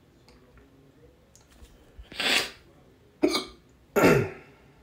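A man hiccuping three times, about a second apart, starting about two seconds in.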